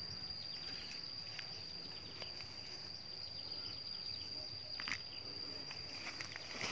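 A steady, high-pitched insect trill, one unbroken tone, over faint outdoor background noise, with a few soft clicks.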